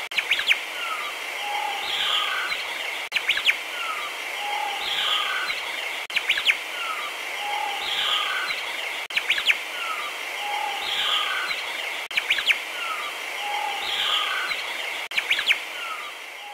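Looped recording of birdsong and chirps over a steady high hiss. The same short pattern of calls and sharp clicks repeats about every three seconds.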